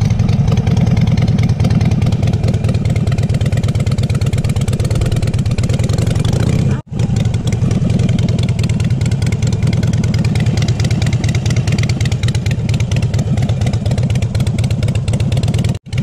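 Harley-Davidson V-twin motorcycle engine running at low, steady revs with its pulsing firing rhythm. The sound cuts out abruptly twice, about seven seconds in and just before the end.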